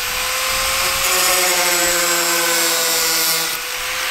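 Corded angle grinder with a cutting disc running at speed, trimming a fiberglass body panel: a steady motor whine over a harsh grinding hiss.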